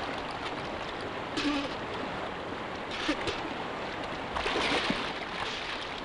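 Steady rush of a fast river around a man wading waist-deep, with bursts of splashing about a second and a half in, around three seconds, and most strongly near the end.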